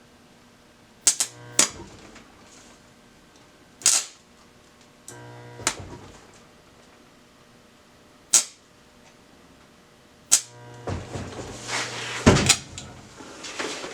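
Stick welder arc strikes on thin steel pipe: a series of sharp snaps as the electrode is tapped and scratched to start the arc, then a longer stretch of crackling arc near the end. A low electrical hum comes and goes, typical of the rod sticking to the work piece.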